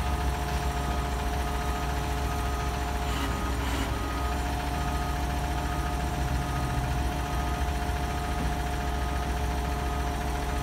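American LaFrance front-loader garbage truck's diesel engine idling steadily, with a faint steady whine and a faint repeating beep over it.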